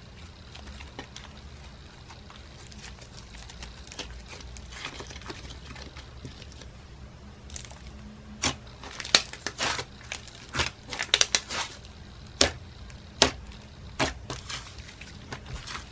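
Slime being squished and pressed by hand. It is soft at first, then from about eight seconds in comes a run of sharp clicks and pops.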